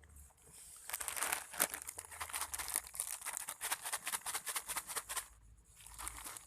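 Dense, crackling crinkle of something being handled, starting about a second in and stopping about five seconds in.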